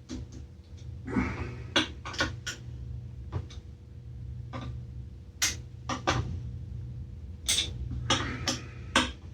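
Clicks, light knocks and brief scraping from small engine parts and hand tools being handled during reassembly of a small two-stroke engine, over a steady low hum.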